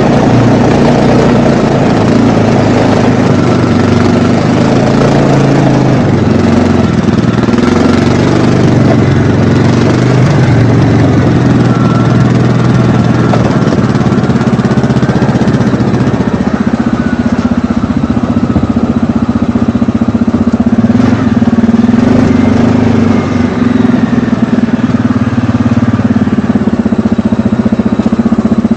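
ATV engine running steadily while the machine is ridden, its note shifting about six seconds in and again around sixteen seconds as the throttle changes.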